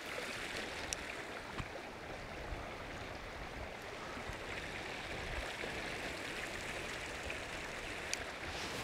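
Steady rush of a fast river running over rocks, with a few faint ticks.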